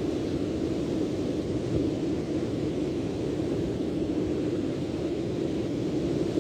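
Steady seaside noise: wind on the microphone mixed with the wash of surf, with no separate events.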